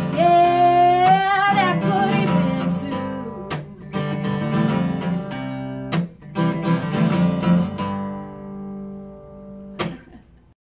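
A woman sings a long held final note over a strummed acoustic guitar. The guitar then strums on alone and fades through the song's closing bars, with one last strum near the end.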